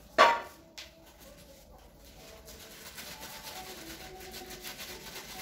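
A sharp clink with a brief ringing tone just after the start and a lighter click under a second later, then a steady scraping rub from about halfway through.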